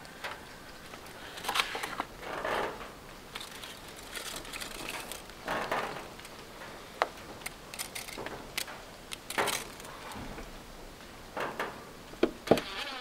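Scattered light knocks, clicks and short scraping rubs of hands and tools working on wooden concrete formwork, with two longer scrapes about two and a half and five and a half seconds in.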